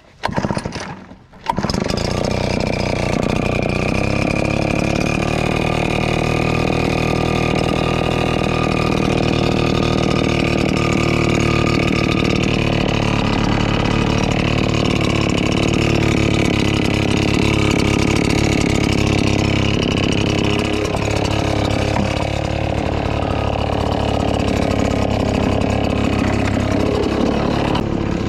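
RedMax EBZ8560 backpack leaf blower's two-stroke engine being started, catching about a second and a half in, then running at a steady speed without revving.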